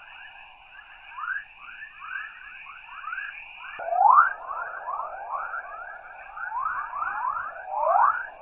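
Earth's 'chorus', the recording made by NASA's RBSP probes and played as sound: a stream of overlapping rising chirps, several a second, over a steady high hiss, sounding much like dolphins or whales. It fills out and grows louder from about four seconds in. The narrator attributes it to particles striking the Van Allen belt.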